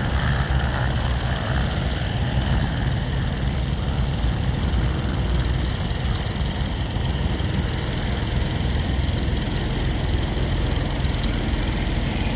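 Quadcopter crop-spraying drone's rotors whirring steadily, deep and even, while it flies a pesticide-spraying pass.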